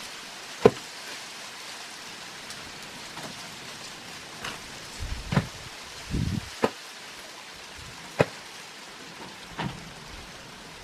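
Dry sticks and leaf litter snapping and rustling under bare feet: a handful of sharp, separate cracks with duller rustles between them, over a steady background hiss.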